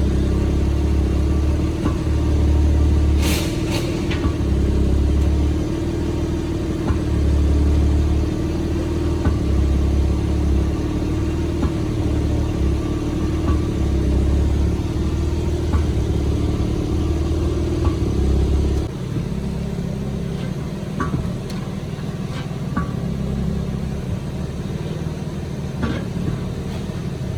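BMW M3 Competition G80's twin-turbo straight-six running, a steady hum over a low pulsing rumble that drops away about two-thirds of the way through. A sharp knock comes about three seconds in, with a few lighter ones later.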